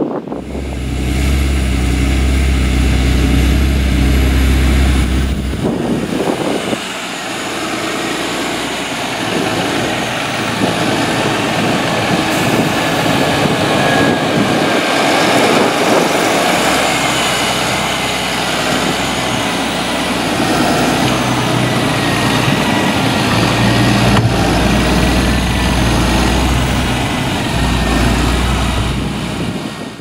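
Fendt Vario tractor's diesel engine running under load while ploughing, with the rush of the working machine. The sound changes abruptly about six seconds in, after which a thin steady whine rides over the engine.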